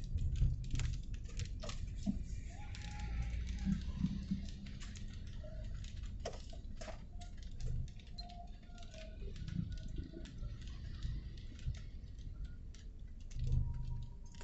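Light rain: raindrops ticking and pattering irregularly on a hard surface, over a low rumble.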